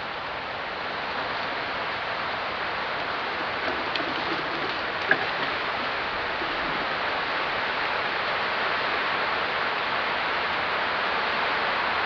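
A steady hiss that grows slightly louder, with one faint short click about five seconds in.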